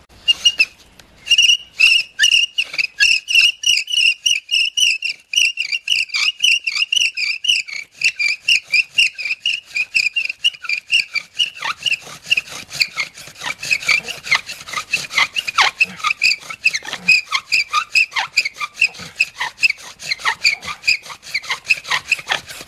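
Shoestring bow drill worked hard: the wooden spindle squeaks and scrapes in the soft-wood fireboard in quick, even back-and-forth strokes, several a second, with a brief pause about a second in. It is a friction-fire attempt in wood too soft to hold an ember, where the spindle keeps burning through the board.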